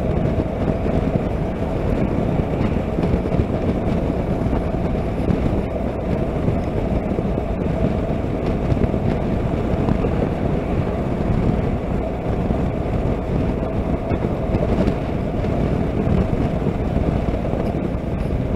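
Honda NC700X motorcycle riding steadily at road speed: its 670 cc parallel-twin engine running under a steady rush of wind and road noise, heard from the rider's seat.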